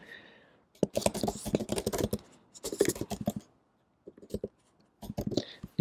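Typing on a computer keyboard: rapid key clicks in a few short runs with pauses between them.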